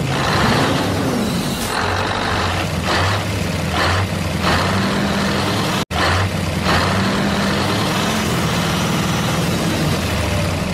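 Truck engine running steadily, with short hisses coming again and again like air brakes, and a sudden brief break in the sound about six seconds in.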